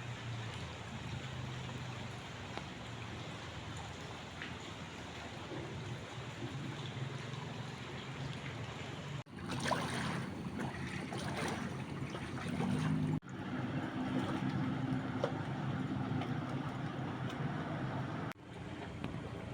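Steady outdoor noise of rain and running water with the low hum of an engine under it. The sound changes abruptly three times where short clips are cut together.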